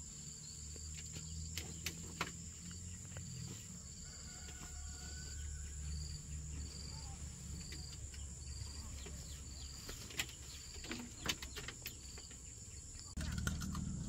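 Crickets chirping in a regular pulse, about two chirps a second, over a steady high-pitched insect drone. A low rumble and a few faint clicks sit underneath.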